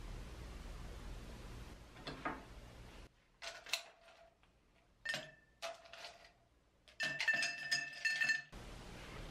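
Ice cubes dropped into an empty glass tumbler, clinking against the glass with short rings: a few single clinks, then a quick run of clinks as more cubes tumble in near the end.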